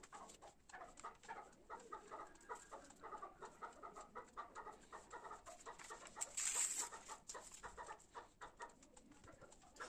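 Glue stick rubbed back and forth over paper: a run of short, faint squeaky scraping strokes, about two or three a second, with a brief rustle of paper about two-thirds of the way through.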